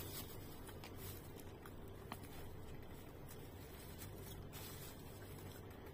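Faint eating sounds: a plastic spoon scooping rice and a potato fritter off a plate and closed-mouth chewing, a few light clicks over steady background noise.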